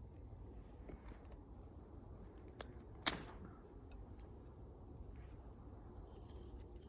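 Wood bonfire burning with a low steady hiss and a few scattered crackles, and one loud sharp pop about three seconds in.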